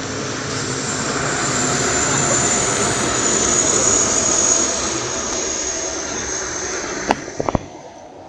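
A motor vehicle running at speed, growing louder to a peak about four seconds in and then fading away. A few short sharp knocks come near the end.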